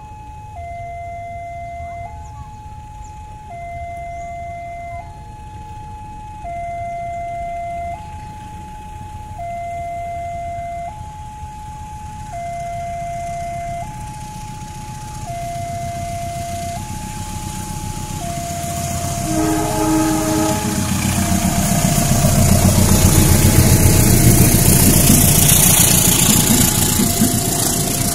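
Railway level-crossing warning alarm sounding steadily, alternating between two tones about every one and a half seconds. About two-thirds through, a diesel locomotive's horn sounds briefly and the approaching train grows loud. Passenger coaches are rushing past on the near track at the end.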